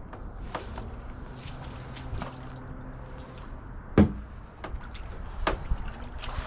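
Handling noises at a kayak strapped onto a car's Thule Hullavator roof-rack lift: scattered light clicks and knocks, with one loud sharp knock about four seconds in.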